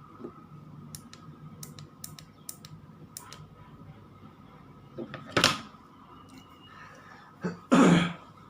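Handling of a ring light and its tripod: several light, sharp clicks over the first few seconds, then two louder bursts of handling noise, the second and loudest near the end.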